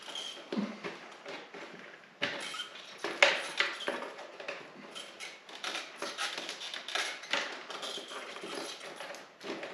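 Irregular clicks, taps and rustling of hands handling a fender eliminator bracket and feeding its light wiring through, with a sharper knock about three seconds in.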